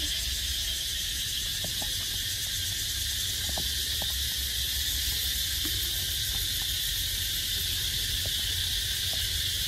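A steady, high-pitched chorus of insects, droning without a break, over a low rumble on the microphone.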